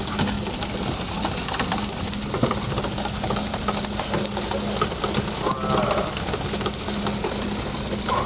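A fishing boat's engine running with a steady low hum that pulses about twice a second, under a constant hiss of splashing water spray. A brief voice calls out about five and a half seconds in.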